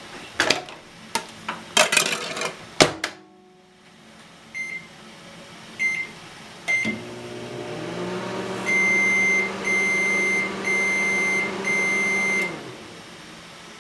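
A few clicks and knocks, then three short keypad beeps, and a microwave oven starts running with a steady hum, working again after a blown fuse was replaced. Four long beeps sound over the hum, which stops as they end.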